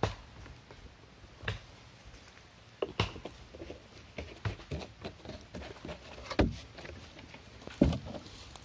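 Scattered handling knocks and thumps, about seven sharp ones with the loudest two near the end, with light rustles of someone moving about on dry leaf litter beside a campfire.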